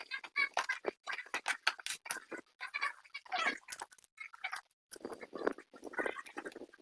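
Packaging being handled during unboxing: irregular crinkling, crackling and clicking, in short uneven bursts.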